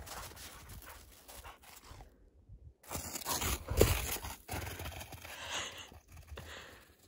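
Footsteps crunching irregularly through crusted snow. The sound cuts out briefly about two seconds in, and the loudest crunches come a second or so later.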